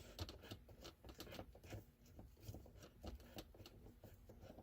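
Faint, irregular small clicks and taps of a screwdriver working a screw out of a car's center console trim.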